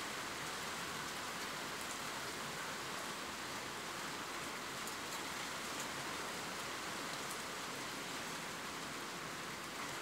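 Steady rain, an even hiss with a few faint, sharp drop ticks here and there.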